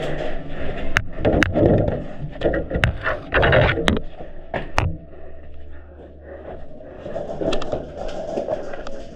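Airsoft play: about five sharp cracks and knocks in the first five seconds, over scuffing and clattering. Then a quieter stretch with a low hum, and the clatter picks up again near the end.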